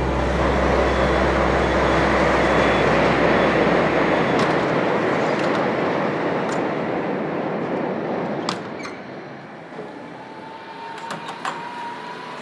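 A passing vehicle: a broad rush of noise swells over the first few seconds and fades away by about nine seconds in, followed by a faint, slowly rising tone and a few light clicks.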